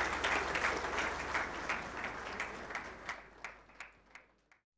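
Audience applause, a dense patter of many hands clapping that thins out and dies away over about four seconds.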